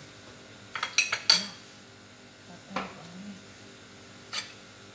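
Kitchenware clinking, metal utensils knocking against dishes or the pan: a quick cluster of clinks about a second in, the loudest, then single clinks near three seconds and again near four and a half.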